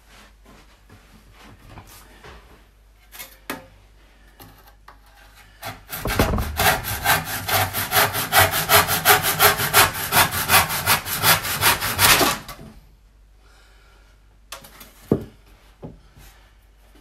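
Handsaw cutting through a Huon Pine bed-frame rail with quick back-and-forth strokes. The sawing starts about six seconds in and stops about six seconds later. Faint knocks and scrapes come before and after it.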